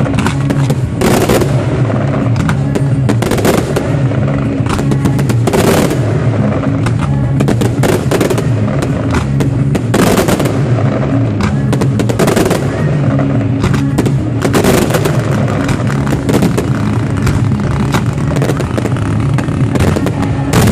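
A fireworks display: rapid volleys of shell bursts and crackling, with several heavier bangs standing out, over music that plays throughout.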